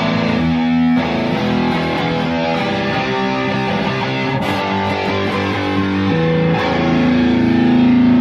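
Ibanez electric guitar played through an amplifier: a run of changing notes, then one long held note near the end.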